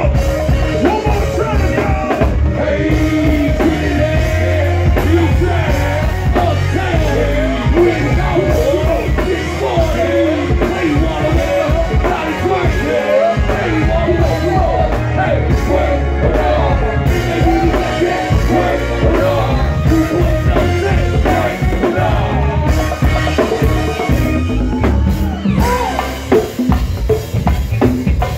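Live band playing with drum kit, bass and electric guitar, and a wavering melodic lead line over the top.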